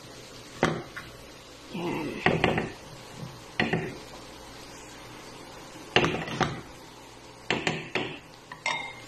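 Wooden spatula knocking and scraping against a nonstick frying pan as stir-fried noodles are tossed, in short irregular clusters of taps.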